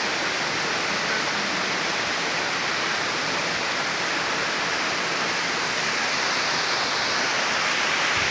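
Waterfall: falling water rushing as a steady, even roar.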